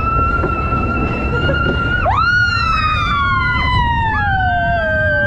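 Several people screaming, overlapping: one high scream rises and holds for about two seconds, then more start about two seconds in and slide slowly down in pitch, typical of riders on a passing roller coaster train.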